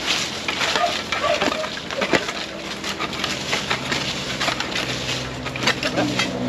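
Digging with a long steel digging bar and a spade in dry, leaf-strewn soil: irregular crunching, scraping and knocking as the tools break up the ground.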